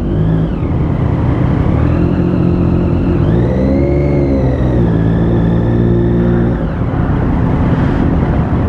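Triumph Daytona 675's three-cylinder engine running at low speed as the bike is ridden slowly onto the ferry. It revs up a little about three seconds in and eases back off near seven seconds.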